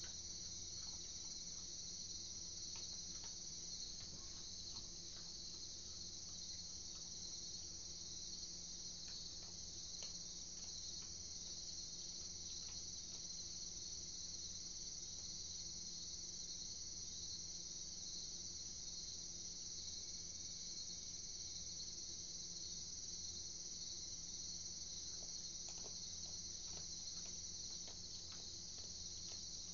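Crickets chirring in a steady, dense high-pitched chorus on a late-summer night, with a faint steady low hum underneath.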